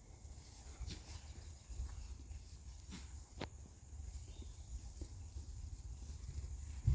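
Fabric and strap handling noises, with a few sharp clicks, as chainsaw chaps' straps and buckles are adjusted over a low rumble.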